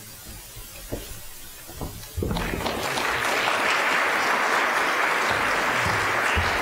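Audience applauding: after a couple of faint knocks, the clapping starts suddenly about two seconds in and holds steady.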